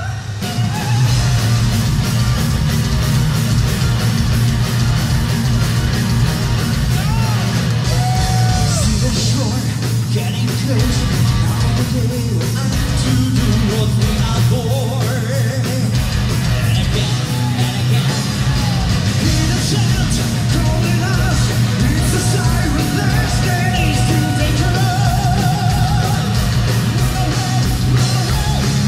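A symphonic metal band playing live: pounding drums, bass and electric guitars under male and female lead vocals, with a long wavering sung note about two-thirds of the way through.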